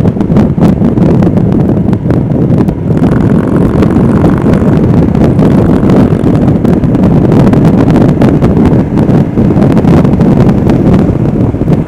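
Royal Enfield Himalayan motorcycle riding at highway speed: heavy, steady wind noise on the microphone over the engine and road noise.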